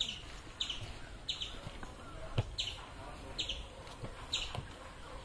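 A bird repeating a short, high, falling call at an even pace, roughly every two-thirds of a second, with a single knock about midway.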